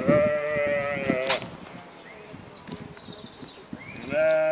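Sheep bleating twice: a quavering bleat lasting just over a second, then a second, steadier and deeper bleat starting near the end.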